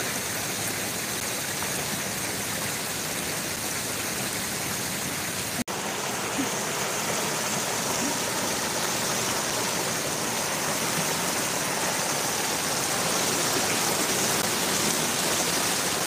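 Water spilling down a small man-made rock cascade into a pond: a steady rushing and splashing that grows a little louder near the end. The sound cuts out for an instant about five and a half seconds in.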